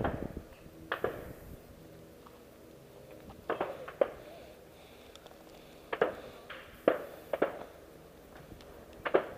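A hiker's footsteps on wooden railroad-tie steps strewn with grit: short scuffing, crunching steps, coming unevenly every second or so.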